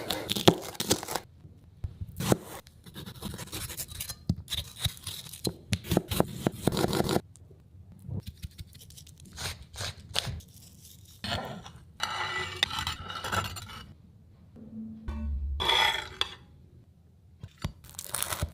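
Kitchen utensils scraping and clinking in quick bursts, with a few pauses between them.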